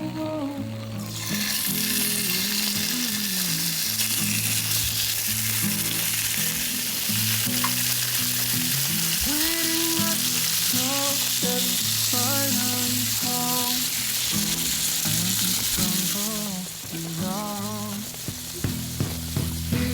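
Food sizzling in a hot pan, a dense hiss that starts about a second in and cuts off sharply a few seconds before the end, over background music with a bass line and melody.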